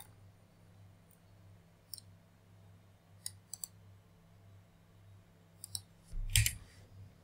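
Sparse computer mouse and keyboard clicks, with a louder thump about six seconds in, over a faint steady low hum.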